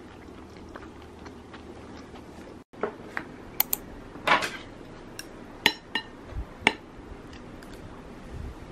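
Utensils clinking and tapping against a ceramic plate: a scattering of sharp clinks over a few seconds, following a short break, over a faint steady hum.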